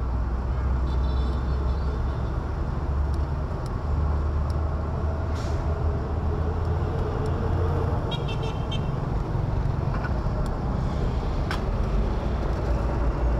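Market street traffic: a steady rumble of engines, with short vehicle horn beeps about a second in and a clearer string of beeps about eight seconds in.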